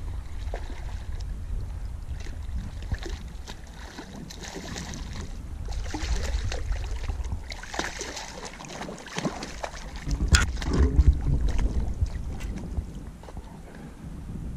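Water splashing and sloshing in the shallows at the river's edge, over a steady low rumble of wind on the microphone, with scattered small clicks and knocks. The loudest burst of splashing and handling comes about ten seconds in and lasts a couple of seconds.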